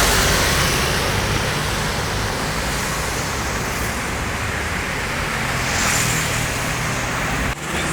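Roadside traffic noise: a steady rush of passing vehicles' engines and tyres, with no horn sounding. It drops out sharply for a moment near the end.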